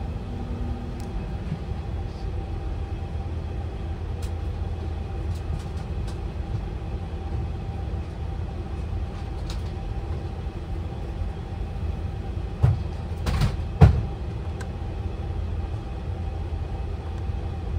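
Steady low hum of the aircraft's ventilation and equipment fans in the Airbus A350 cockpit, with a faint steady whine. A few sharp clicks near the end.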